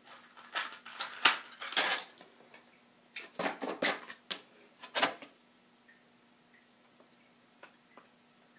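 Hard objects clattering and knocking as they are handled and set down, in two bursts of rattles, the second starting about three seconds in.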